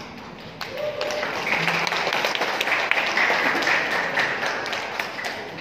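Audience applauding, swelling about half a second in and fading away near the end.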